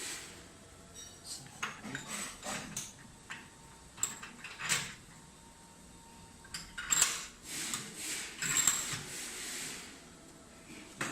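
Metal spindle parts and tools handled on a workbench during reassembly of a CNC router spindle with new bearings: irregular clinks, taps and scrapes of metal on metal, the busiest clatter about two thirds of the way through.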